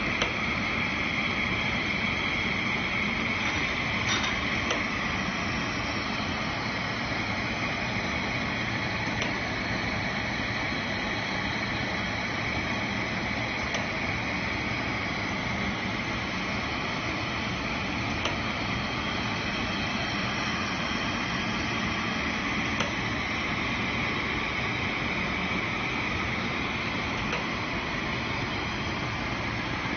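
Automatic jar filling and capping line running: a steady mechanical hum and hiss from the conveyor and machinery, with a light click about every four and a half seconds.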